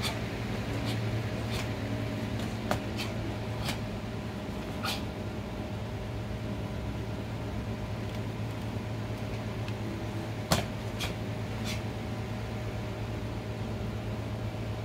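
Sharp snaps from a karate kata being performed: about a dozen crisp cracks at irregular intervals as strikes and stances land, the loudest about ten and a half seconds in, over a steady low hum.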